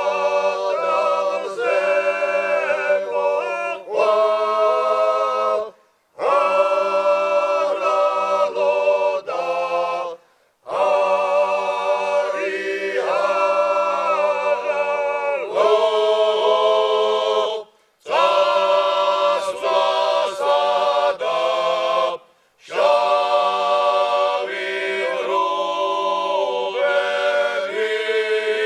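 Men's ensemble singing a Georgian polyphonic makruli, a wedding song from Ghebi in Racha, a cappella in several voice parts. The song runs in phrases of about five seconds, each ended by a brief break for breath.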